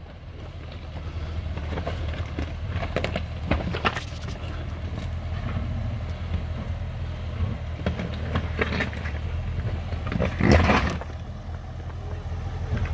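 Range Rover Sport engine running low and steady as the SUV crawls over loose rock, with tyres crunching and stones clicking and scraping underneath. One louder scrape comes about ten seconds in.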